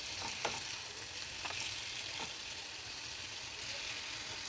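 Marinated chicken tikka pieces sizzling in hot ghee in a nonstick frying pan as more pieces are laid in by hand. There are a few short sharp sounds as pieces land, about half a second, one and a half and two seconds in.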